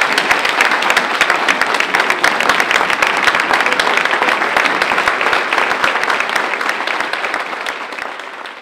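Large audience applauding, many hands clapping in a dense, loud patter that starts to taper off near the end.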